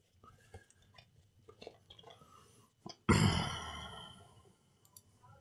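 Faint clicks and handling noises, then a breathy exhale or sigh about three seconds in that fades over about a second and a half.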